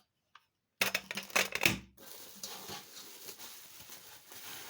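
Stainless steel pressure cooker parts being handled, giving a rapid metallic clatter about a second in that lasts about a second. A softer, even rustle-like noise follows.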